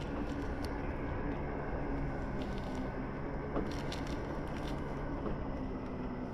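Mandarin orange peel being pulled off by hand: a few short crackling, squishy tearing sounds over a steady low rumble and hum.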